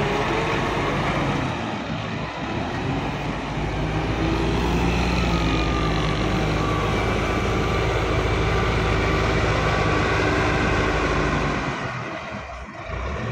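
Caterpillar 950 wheel loader's diesel engine running hard and steady under load as the machine carries a full bucket of gravel and lifts it, easing off near the end.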